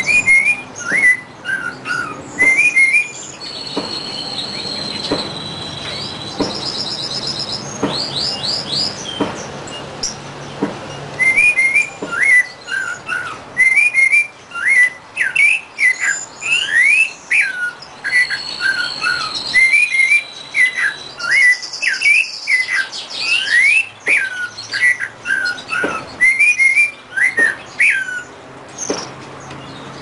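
A caged songbird singing: short chirped phrases repeated again and again, with a long, high, steady whistle held for about two seconds, twice.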